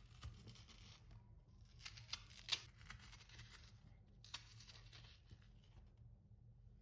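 Faint scraping of a raw turnip being prepared by hand, in three bursts with sharp clicks, the loudest click about two and a half seconds in.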